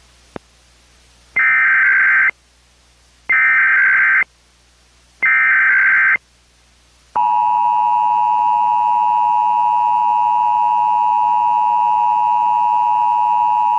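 Emergency Alert System SAME header: three one-second bursts of warbling digital data tone, one after another, followed about seven seconds in by the steady EAS attention signal, two tones at 853 and 960 Hz sounding together.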